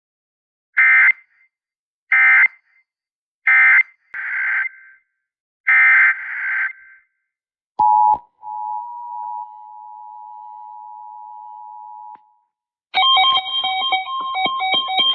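Emergency Alert System SAME header: several short, harsh digital data bursts about a second and a half apart, then a steady two-tone attention signal held for about four seconds that cuts off abruptly. Music starts near the end.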